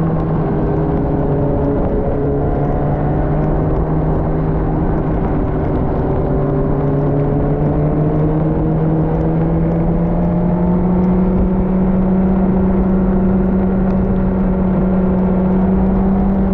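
Motorcycle engine running steadily at cruising speed, its pitch dipping briefly about two seconds in and then rising slowly, over a constant rush of wind and road noise.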